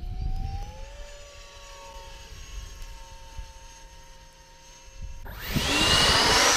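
Electric ducted-fan (impeller) model jet flying at full throttle: a faint distant whine that rises in pitch over the first second. About five seconds in, it becomes a sudden loud rushing whoosh with a rising whine as the jet makes a close, low pass.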